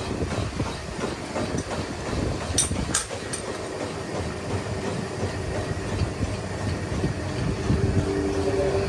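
Milling machine running, cutting a worm gear, with a steady mechanical rumble and clatter throughout; two sharp clicks come about two and a half and three seconds in.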